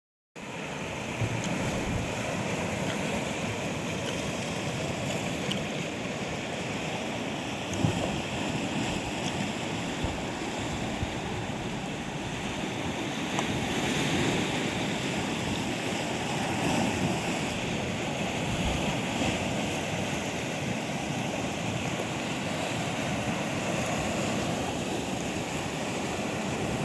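Sea surf washing steadily onto the shore, with some wind on the microphone.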